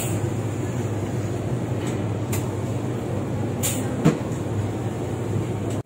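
Steady background hum and murmur of a busy mall food court, with a few light clicks and one sharp knock about four seconds in.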